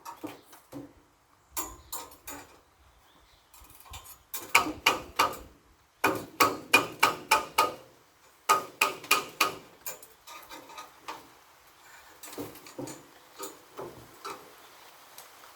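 Hammer blows in quick bursts of about six or seven strikes a second, with lighter scattered taps between the bursts.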